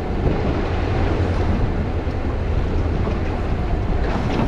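Wind buffeting the microphone over a steady low rumble and rushing water, as from a small boat running across open water.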